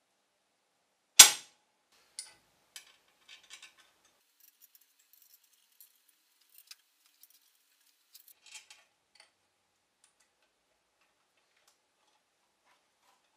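Small metallic clicks and taps of steel cap screws and pins being picked up and set into the holes of a lathe way, with one sharp clack about a second in, the loudest. A few scattered ticks follow, dying away after about nine seconds.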